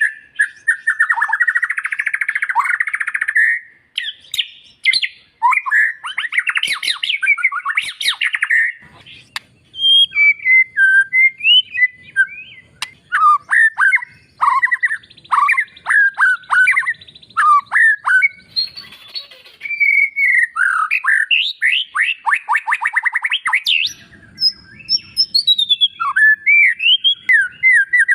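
White-rumped shama in full song, loud and very varied: harsh rasping notes, quick sliding whistles and fast trills with only short pauses.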